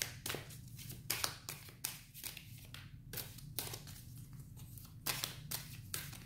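A deck of tarot cards shuffled by hand: a run of soft papery card swishes and taps at an uneven pace, a few each second.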